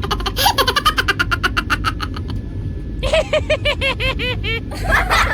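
Steady low rumble of a moving train, with two runs of rapid, rhythmic pitched sounds from a person's voice, the first in about the first two seconds and the second from about three seconds in.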